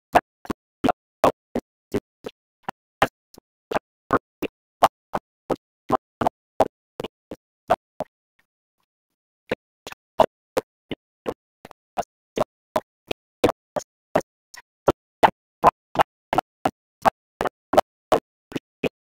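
A rapid series of sharp clicks, about three a second, varying in strength, with a pause of about a second and a half near the middle.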